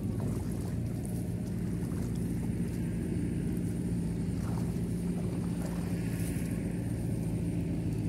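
A small engine running steadily, a low even drone with no change in pitch.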